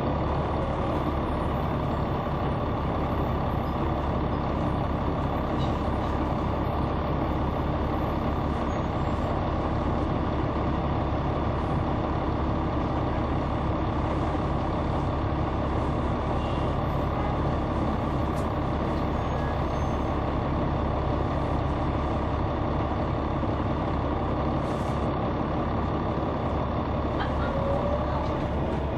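Caterpillar C9 ACERT diesel engine of a Neoplan AN459 articulated transit bus, heard from on board, running steadily, with a faint rising whine near the end.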